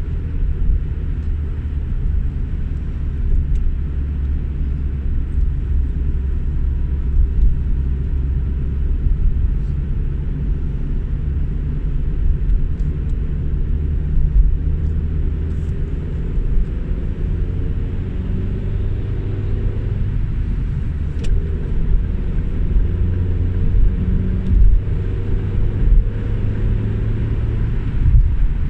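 Steady low rumble of engine and tyre noise heard inside a moving car's cabin, with the engine note rising gently about halfway through as the car speeds up.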